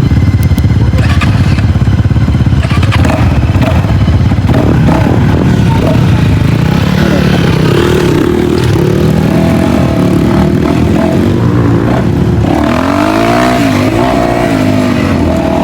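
Dirt bike engines running, with the revs rising and falling several times in the second half.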